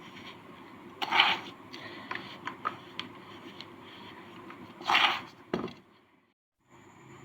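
Hardened sand cake crunching and crumbling as it is worked by hand: two loud gritty crunches, about a second in and about five seconds in, with small crackles and grains ticking between them. The sound drops out briefly near the end.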